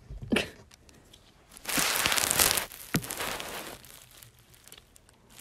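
Crinkly, crunching noise, loudest about two seconds in and then fading away, with a couple of sharp clicks.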